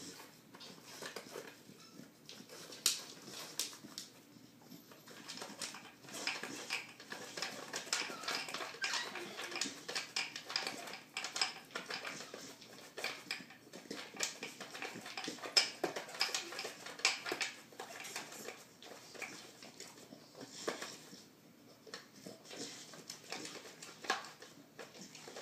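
A dog working a round plastic treat-puzzle toy, nosing and pawing at its sliding compartments: irregular plastic clicks and knocks, with sniffing at the openings.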